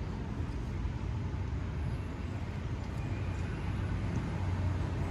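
Steady low rumble of background noise with a faint hiss above it.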